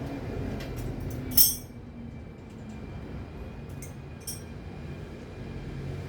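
Steady low rumble of traffic with one sharp metallic clink about a second and a half in, and a few lighter clicks.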